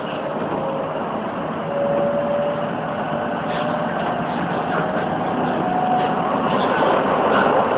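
Keisei 3700 series electric train running, heard from the driver's cab: a steady rumble of wheels on rails, with a motor whine whose pitch rises in steps as the train picks up speed.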